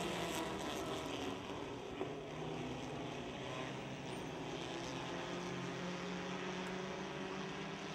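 A pack of Dirt Devil class stock cars racing on a dirt oval, their engines running together in a steady drone.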